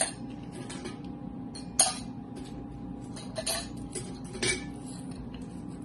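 Ice cubes dropped one at a time into a glass tumbler: a handful of separate clinks, the loudest about two seconds in.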